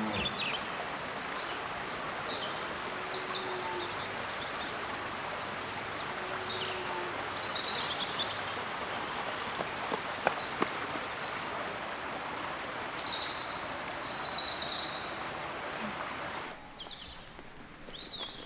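Outdoor ambience: birds chirping in short, scattered high calls over a steady hiss, which drops away abruptly near the end.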